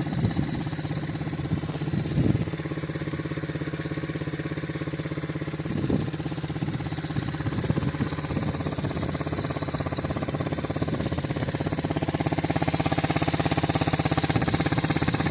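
An engine running steadily with an even pulsing hum, a little louder over the last few seconds.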